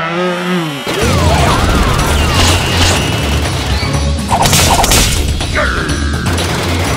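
Added action sound effects over background music with a steady pulsing beat: a gliding, falling pitched effect at the start, then swishes and short smashing hits about two and a half and four and a half seconds in.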